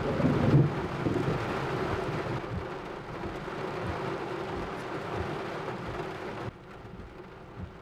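Thunder rumbling over steady rain, loudest about half a second in and then trailing off. The rain noise drops sharply in level near the end.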